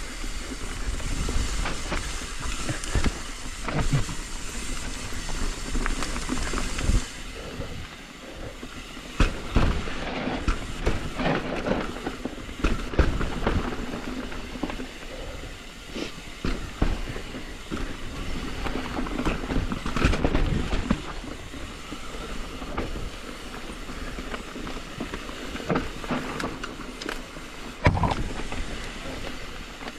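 A hardtail mountain bike riding fast down a rough dirt singletrack: tyres rumbling over dirt and roots, with the chain and frame rattling in many short knocks. There is a steady rush of air for the first few seconds.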